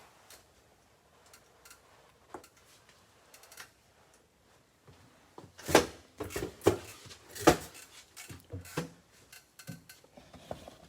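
Things being handled and set down on a hard surface: scattered light clicks, then a run of sharp knocks and clatters, the loudest about six and seven and a half seconds in.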